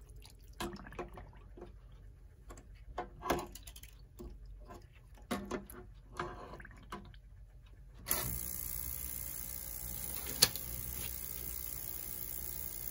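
Water splashing and light knocks as a clock movement is set in an ultrasonic cleaner's tank of fresh water. About eight seconds in the ultrasonic cleaner switches on and runs with a steady hiss and a faint hum, with one sharp click a couple of seconds later.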